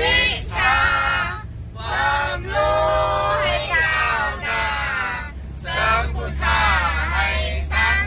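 Voices singing a song in long held phrases with short breaks between them, over a steady low rumble.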